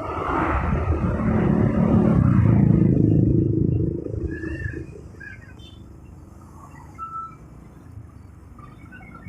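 Motorcycle riding noise: engine and road rumble from traffic, loud for the first four seconds or so, then dropping to a quieter steady hum with a few faint short high tones.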